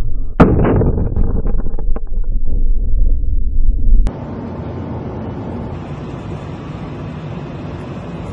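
An explosion on the deck of a speeding target boat, picked up by a camera on board: a sharp blast about half a second in, over a loud rumble of engine and wind, then a second or so of crackling. About four seconds in, the sound cuts to a quieter, steady hiss.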